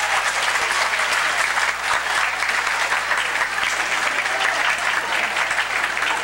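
Audience applauding at ringside, a dense, steady clapping of many hands at the close of a boxing bout.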